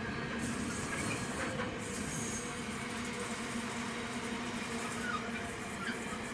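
Container wagons of a freight train rolling past: steady noise of wheels on rail with a steady low hum.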